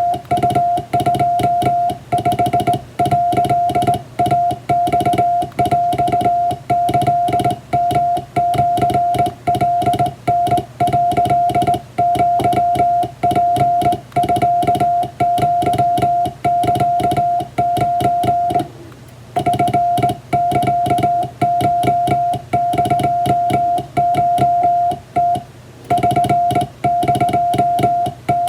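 Morse code sent by hand on a straight telegraph key: a steady beep of about 700 Hz keyed on and off in dots and dashes of Japanese wabun telegram text, with short breaks between characters and two longer pauses in the second half. A lower, quieter hum runs underneath.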